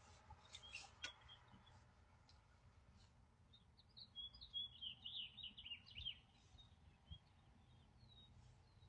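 Faint bird chirping over near silence: a quick run of chirps in the middle, after a few faint clicks near the start.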